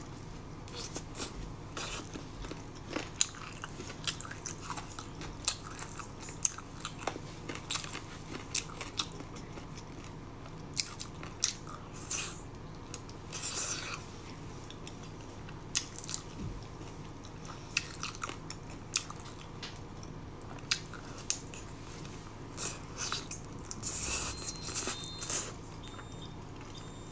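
Close-up eating of braised chicken feet: biting and chewing, with irregular sharp wet clicks and smacks scattered through.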